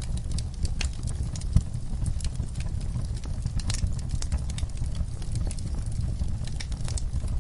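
Wood fire crackling, with irregular sharp pops and snaps and one louder pop about one and a half seconds in, over a low steady rumble.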